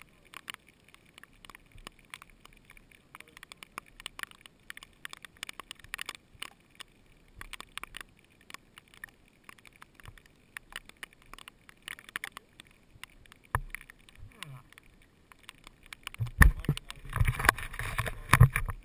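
Faint scattered clicks and crackles, with no engine running. About sixteen seconds in, loud rubbing and thumps as fingers handle the GoPro camera.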